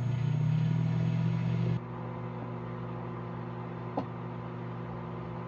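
Microwave oven running with a fork inside: a steady hum, loud for the first couple of seconds and then dropping to a quieter steady hum, with a single click about four seconds in. The fork is not sparking or arcing.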